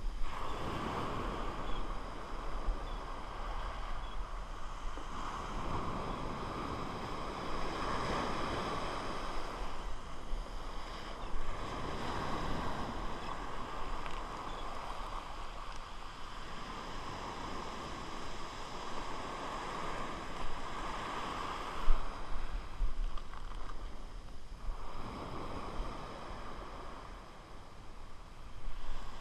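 Small surf breaking and washing up a sandy beach in slow surges every few seconds, with some wind on the microphone. One sharp bump about three quarters of the way through.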